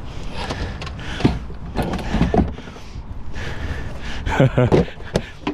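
Irregular knocks and scrapes of a red drum drain snake being handled and set down into a hard plastic tool case.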